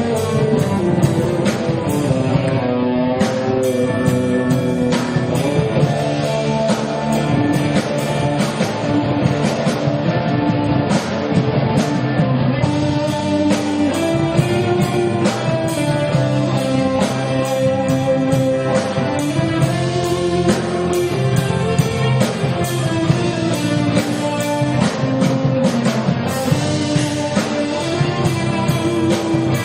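Live rock band playing: an electric guitar carries a gliding melody over drum kit and bass, steady and loud throughout.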